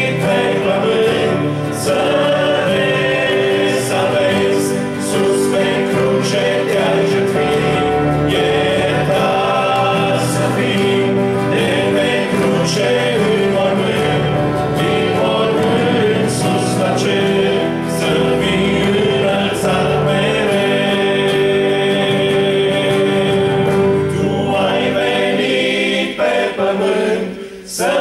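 Male vocal group singing a worship hymn in harmony, accompanied by strummed acoustic guitars and an electronic keyboard. Near the end the bass of the accompaniment drops away and the level dips briefly.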